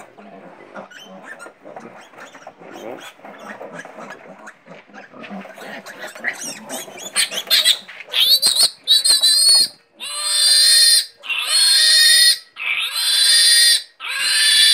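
A piglet squealing loudly and repeatedly, about six shrill cries of roughly a second each, after several quieter seconds. The squealing starts as it is caught and held up for an iron injection.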